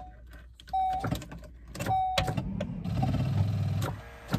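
A van's dashboard warning chime beeps twice, then the starter cranks the engine for about two seconds; the van has a fault.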